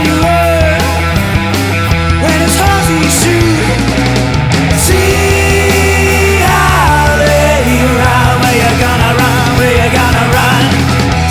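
Blues-rock song from a band's studio recording playing loud and steady, with long held notes that bend in pitch from about halfway in.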